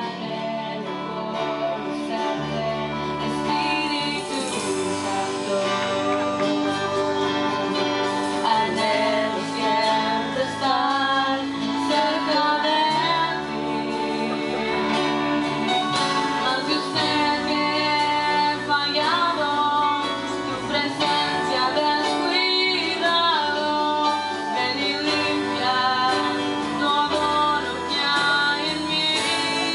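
A woman singing a worship song into a microphone over a live band with electric guitar; the guitar plays alone at first and her voice comes in about four seconds in.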